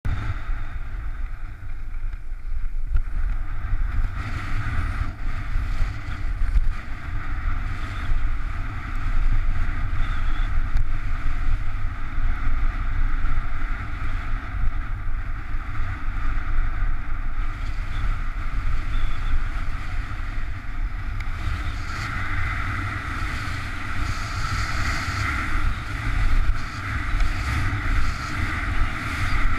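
Wind buffeting the microphone as a skier travels downhill, with a steady low rumble and the scraping hiss of skis on packed snow. The scraping grows louder about 22 seconds in as the skier carves turns.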